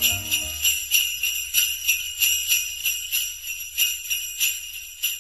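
Sleigh bells shaken in an even rhythm, about three shakes a second, over a held low bass note: the closing bars of Christmas background music, fading out near the end.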